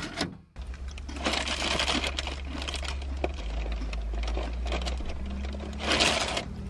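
Low steady hum inside a parked car's cabin, with irregular clicking and rustling from small objects being handled near the microphone.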